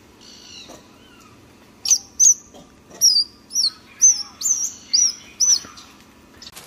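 Newborn macaque squealing: a run of about nine short, high-pitched cries starting about two seconds in.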